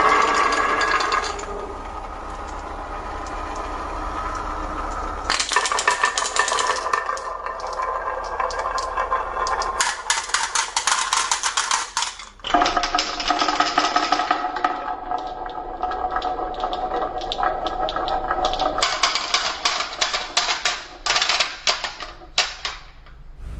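Marbles rolling and clattering down a wooden marble-run track, with rapid clicks and a rolling ring. The clatter swells in several louder stretches and briefly drops about twelve seconds in.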